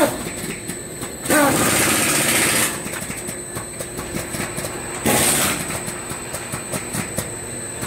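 Two-head wide belt sander (240 and 320 grit belts) running with steady machine noise and a thin high whine, as a lacquered panel is face-sanded. A sharp knock comes right at the start. A louder hissing rush follows about a second in and lasts over a second, and a shorter one comes about five seconds in, as the panel passes under the sanding belts.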